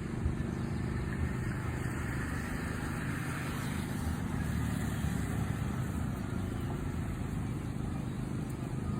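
A motor vehicle's engine running at a steady, even drone, heard from on board.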